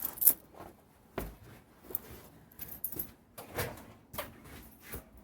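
Brake pedal being pumped repeatedly while bleeding the brakes: a string of short clunks and knocks, about one every half second to second, the loudest just after the start.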